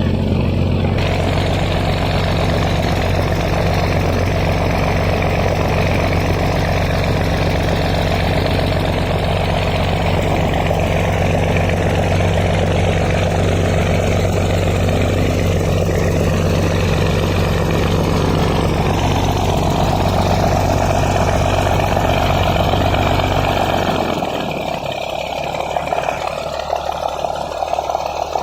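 Boat engine running steadily with a low hum under a broad wash of noise. About three-quarters of the way through the engine hum drops away, leaving a quieter, uneven noise.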